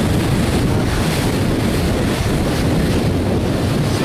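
Wind buffeting the microphone aboard a moving boat, over a steady rush of water along the hull.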